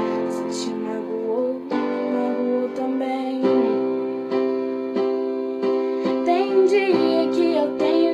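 Instrumental music: sustained keyboard chords that change every second or two, with a plucked ukulele-like accompaniment and a melody line coming in near the end.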